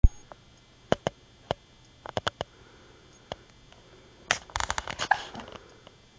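A baby with hiccups: short, sharp hiccup clicks spaced irregularly, with a busier run of them and a brief little voice sound about four and a half to five and a half seconds in.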